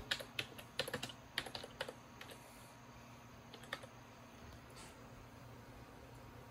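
Typing on a laptop keyboard to enter the 'boot cdrom' command: a quick run of key clicks over the first two seconds, then a few single taps.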